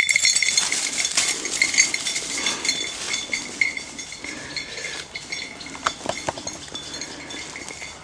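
Small metal bells jingling and clinking in an irregular jangle, loudest at first and growing quieter.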